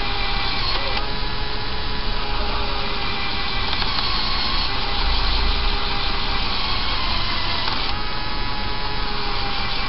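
LEGO Technic electric motor driving the crane's plastic gear train: a steady whirring grind with several whine tones that shift in pitch about a second in and again near eight seconds.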